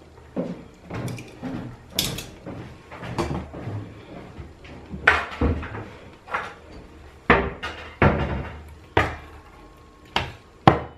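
Kitchen utensils and dishware knocking and clinking about a dozen times at irregular intervals, starting with metal serving tongs setting a piece of chicken on a ceramic plate.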